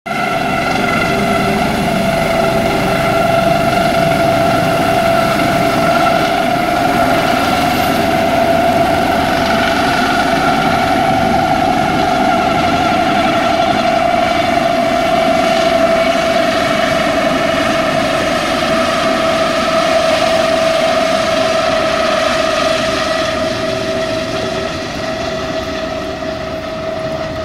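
Air ambulance helicopter in flight: a steady high turbine whine over the rush of the rotors as it climbs away, growing slightly fainter in the last few seconds.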